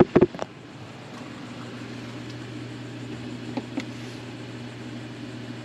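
A few sharp handling knocks, then, about one and a half seconds in, a steady low electrical hum starts and holds. It comes from the dorm-room mini fridge running off an EcoFlow River 2 Max portable power station.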